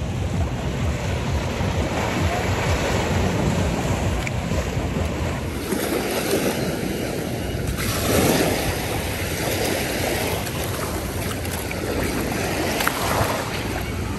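Sea water washing and rushing, with wind buffeting the microphone; the rush swells about six and eight seconds in.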